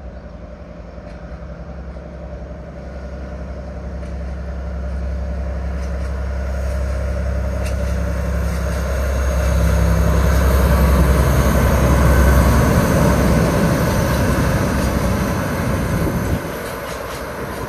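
Freight train of cement hopper wagons headed by two diesel locomotives approaching and passing. A deep, steady engine drone grows louder until the locomotives go by about two-thirds of the way through. The engine note then gives way to the rushing rattle of the wagons' wheels on the rails.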